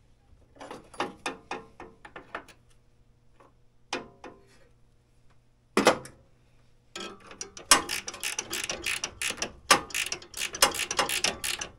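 A hand ratchet wrench clicking in short runs as a bolt on the snowmobile's drive is tightened. There is a single louder clack about six seconds in, and the last few seconds are a long, fast run of clicks.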